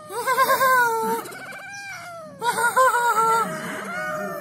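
Young calico cat meowing twice: two long, drawn-out calls with a wavering pitch that sags at the end, the second beginning about halfway through and trailing off.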